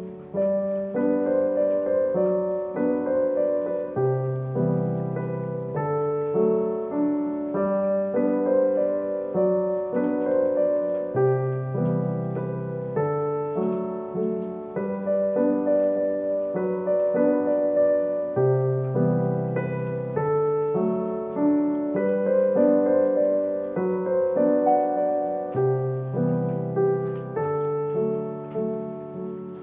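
Background piano music: a gentle melody in a phrase that repeats every seven seconds or so, with low bass notes at the start of each phrase.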